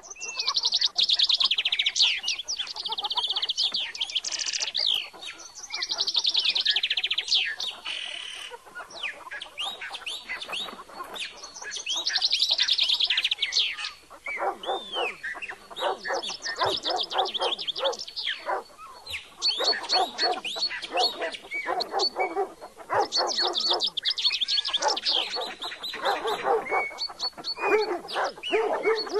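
Many birds chirping and calling at once in a dense chorus: fast high trills in the first half, joined by lower, rapidly repeated calls from about halfway through.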